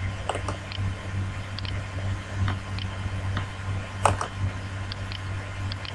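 Computer mouse clicking a dozen or so times at irregular intervals, with one louder click about four seconds in, over a steady low electrical hum.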